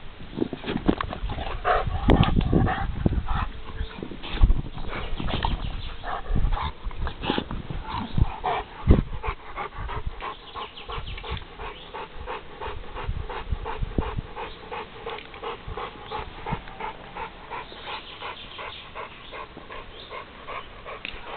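American bulldog panting hard, quick even breaths about three a second, with a few heavy thumps and rumbling in the first half.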